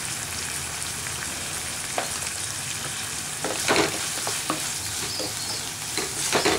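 Chopped onions sizzling steadily as they fry in oil in a pan. They are stirred a few times, with louder scraping strokes about two seconds in, a little after three and a half seconds, and near the end.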